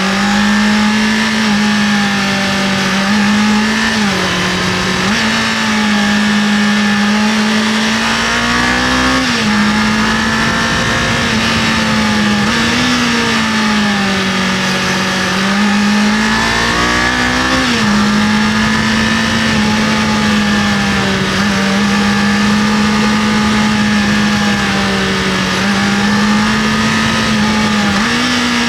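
Kawasaki KLE500's parallel-twin engine running at steady riding revs, its pitch briefly rising and dipping every few seconds with throttle changes, under a constant rush of wind and road noise.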